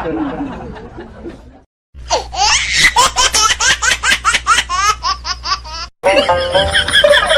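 Laughter in a rapid run of high-pitched bursts lasting about four seconds, starting after a brief cut to silence. Near the end it gives way to music with steady notes.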